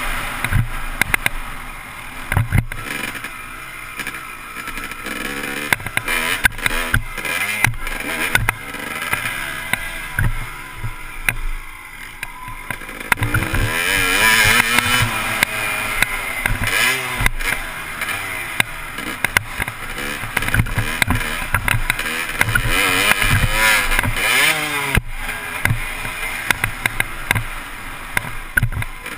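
Dirt bike engine revving up and down as the bike is ridden around a motocross track, heard from a helmet-mounted camera, with wind noise and repeated knocks from the ride.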